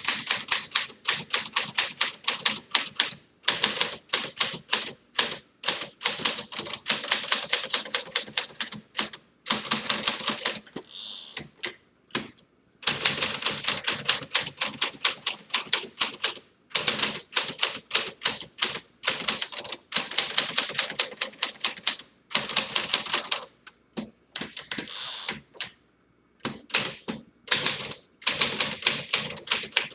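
1954 Smith Corona Silent Super manual typewriter being typed on, freshly restored with a new platen: quick runs of key strikes, several a second, broken by short pauses.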